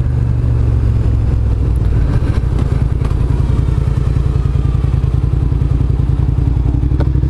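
Motorcycle engine heard from the rider's position, running with an even pulsing beat and its note slowly falling as the bike slows under hard braking.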